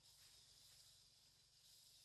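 Near silence: a faint, steady high-pitched hiss of outdoor background.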